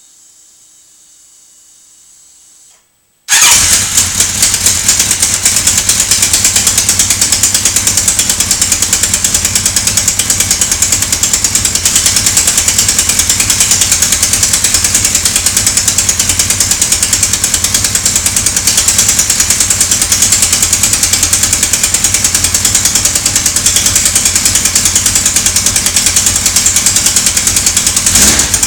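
Kawasaki GPZ1100 motorcycle's air-cooled inline-four engine, which comes in suddenly about three seconds in and then runs loud and steady with a fast, even pulse. It is making the odd engine noise that the owner is puzzled by.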